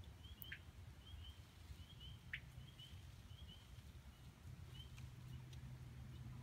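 Faint, distant frogs peeping: short high calls that come in pairs and repeat about every half second, over a steady low rumble, with a couple of brief clicks.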